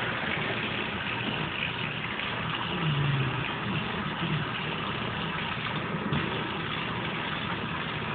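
Kitchen faucet running steadily, water pouring into a stainless steel sink and over a kitten being rinsed under it.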